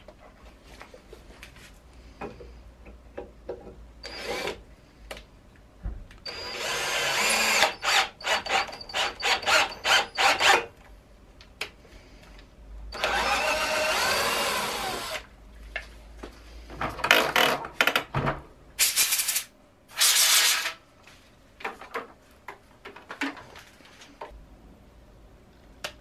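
Cordless drill driving an M8 tap to cut threads in holes in an aluminium extrusion profile. The motor whines in a string of short stop-start bursts, with one steadier run of about two seconds near the middle and quieter gaps between.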